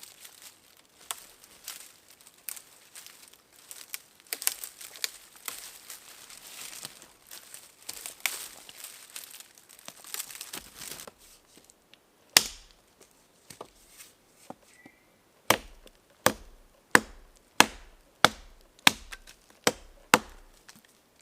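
Wood being chopped by hand: irregular light cuts and cracking for about half the time, then a run of about eight sharp, evenly spaced chops near the end.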